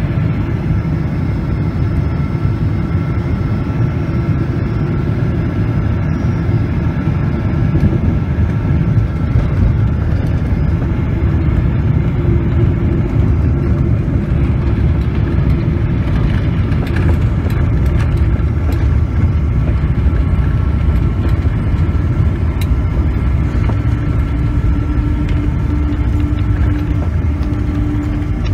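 Steady, loud low rumble inside the cabin of a Boeing 777-200 with Pratt & Whitney engines, heard from a window seat over the wing during landing. It carries the engines and airflow on short final, then the landing roll along the runway.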